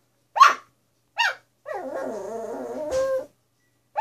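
A dog barks twice in short sharp barks at his own reflection in a wine fridge. Then comes a drawn-out, wavering vocal sound of about a second and a half, and another bark at the very end.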